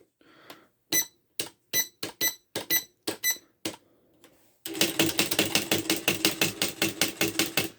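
Smith Corona 250 DLE electronic typewriter printing: about ten separate sharp strikes, then from about halfway in a rapid run of strikes, roughly nine a second, over a steady motor hum, stopping near the end.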